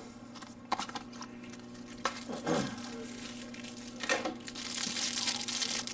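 Small cardboard retail box being opened and its packaging handled. A few light knocks come first, then rustling and crinkling from about four seconds in.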